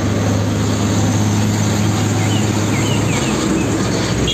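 Isuzu fuel tanker truck's diesel engine running steadily as the truck drives past, a loud low hum. A few faint bird chirps sound over it.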